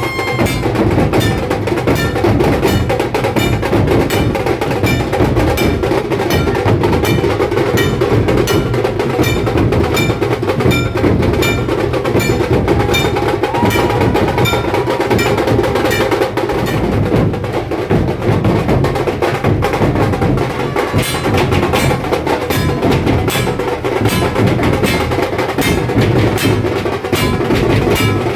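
Dhol and tasha drums played together in fast, unbroken strokes: sharp stick hits on the tasha over the deeper beat of the dhol.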